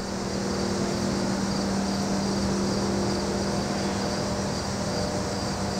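Crickets chirping in a steady pulsing rhythm over a continuous low hum.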